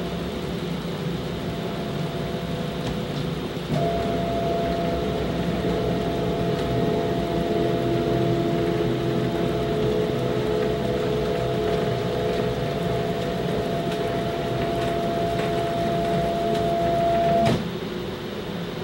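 Stepper motors of a DIY CNC router whining as the gantry moves, a set of steady tones that start suddenly about four seconds in and cut off sharply near the end. A steady background hum runs underneath.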